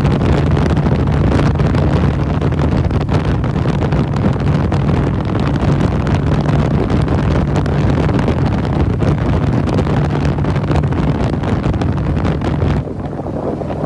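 Motorcycle engine running at highway speed, with heavy wind noise on the microphone as the bike cruises. About a second before the end, the sound drops a little quieter.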